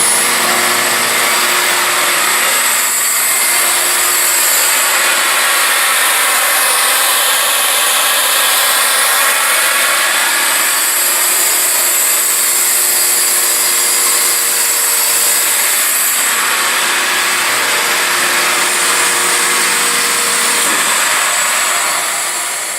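Quincy 100 HP water-cooled industrial air compressor running and building pressure. A loud, steady hiss is layered over several constant hum tones, and the level eases off slightly over the last couple of seconds.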